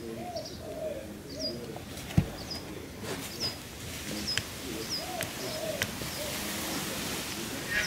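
Birdsong outdoors: a pigeon-family bird cooing over and over in low arched calls, with a small bird's short high chirps repeating between them. A single thump about two seconds in, a few faint clicks after it, and a hiss building near the end.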